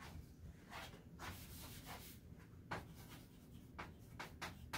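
Chalk writing on a blackboard: a series of short, faint scratching strokes at an uneven pace.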